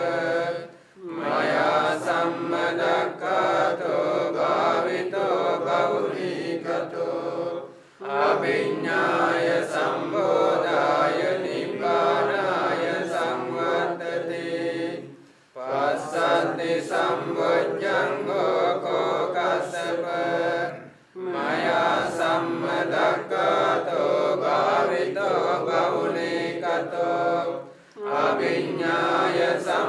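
Buddhist monks chanting Pali paritta verses together in a steady recitation. The chant comes in long phrases broken by short pauses for breath, about five times.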